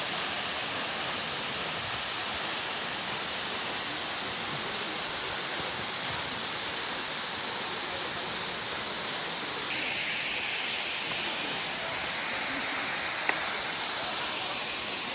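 Waterfall rushing steadily, water pouring down over rock in an even hiss. About ten seconds in, the rush turns brighter.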